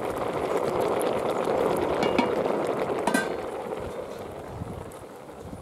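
Toor dal and split chickpeas boiling in a metal pot over a wood fire: a dense, steady bubbling that grows fainter in the last couple of seconds, with a single sharp click about three seconds in.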